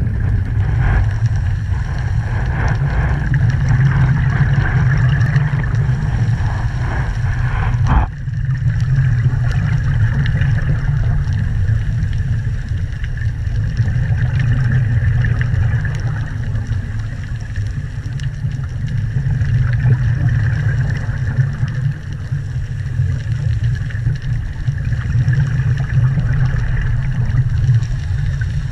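Underwater ambient sound picked up through a camera's waterproof housing: a steady low rumble with faint crackling ticks, and a single knock about eight seconds in.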